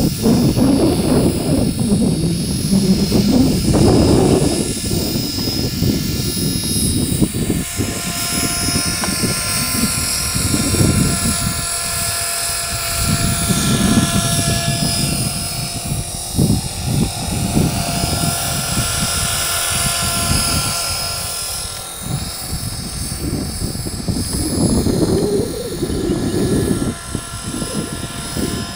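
Radio-controlled model helicopter lifting off and flying circuits: steady rotor noise with a high drive whine. It is loudest during the lift-off in the first few seconds, then rises and falls in pitch as it flies about.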